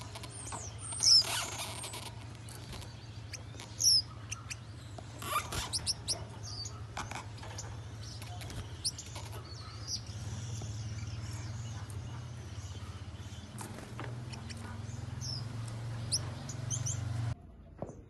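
Gouldian finches giving short, high chirps scattered throughout, the loudest about a second and four seconds in, over a steady low hum.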